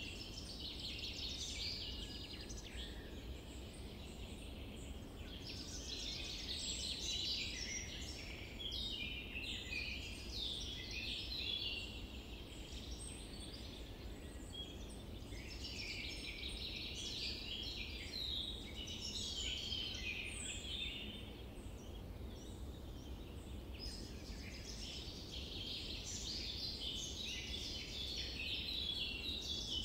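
Chorus of small birds chirping, many calls overlapping in stretches that swell and fade every few seconds, over a low steady rumble.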